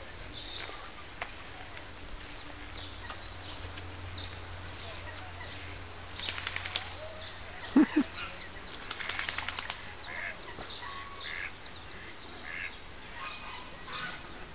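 Waterfowl and ducklings at a pond: scattered short high peeps, two spells of rapid rattling sounds about six and nine seconds in, and a brief low call about eight seconds in, the loudest sound.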